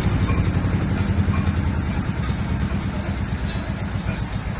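12 kVA diesel generator set running steadily inside its sound-proof acoustic enclosure: a low, even engine hum with a fast regular pulse.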